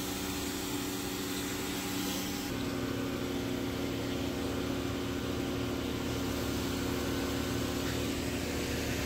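An engine running steadily with an even hum, its tone changing abruptly about two and a half seconds in.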